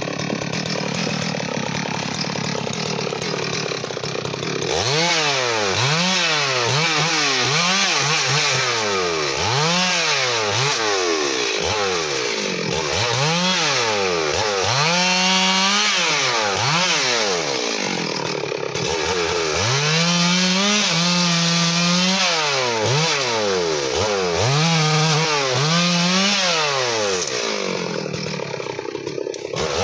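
Stihl MS 382 two-stroke chainsaw running at idle for the first few seconds, then revved up and down over and over as it cuts through the branches of a felled teak tree, several cuts held at full throttle for a second or two.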